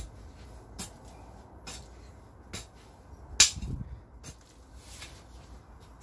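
Long-handled hoe chopping into loose garden soil. There are light sharp strikes about once a second, and the heaviest blow, a dull thud, comes a little past halfway.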